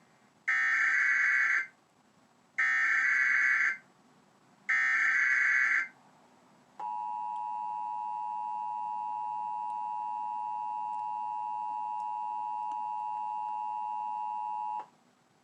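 Emergency Alert System tones from a television: three roughly one-second bursts of the buzzy SAME header data, a second apart, then the steady two-tone EAS attention signal held for about eight seconds and cut off sharply. These tones herald an Amber Alert message.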